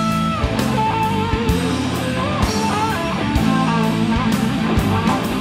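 Live blues-rock band playing an instrumental passage: a lead electric guitar plays bending, wavering notes over bass and a steady drum beat.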